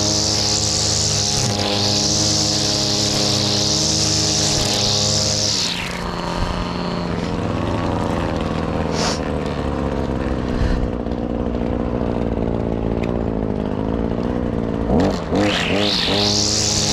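Shindaiwa brushcutter (whipper snipper) running at full throttle with its nylon line head spinning. About six seconds in it drops to a low idle. Near the end it revs back up to full speed.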